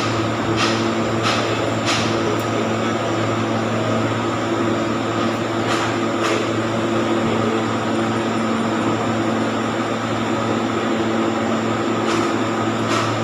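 INVT HT33120 modular three-phase UPS humming steadily while it runs on inverter and carries a light load: cooling fans over a mix of low and higher electrical tones. A few short faint clicks sound now and then.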